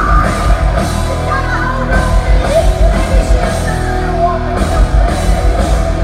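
Heavy metal band playing live and loud: distorted electric guitar and drums with a voice singing, heavy in the bass.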